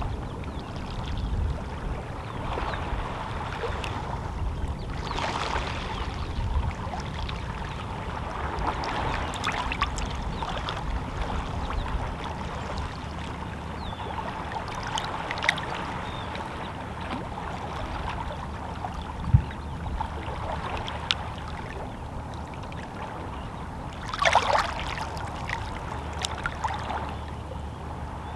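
Small, calm sea waves lapping against shoreline rocks: a steady wash with little splashes, trickles and clicks of water among the stones, and a bigger splash about 24 seconds in.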